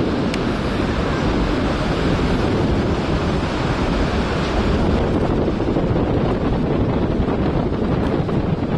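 Wind buffeting the microphone: a loud, steady rushing noise, heaviest in the low end, that flutters constantly.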